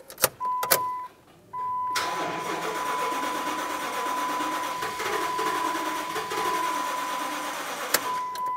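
Starter cranking the Dodge Dakota's 4.7L V8 for about six seconds, then cutting off abruptly; the fuel pump fuse is pulled, so this is the crank-no-start used to bleed off fuel-system pressure. A few clicks come about a second before the cranking, and a steady high warning tone sounds almost throughout.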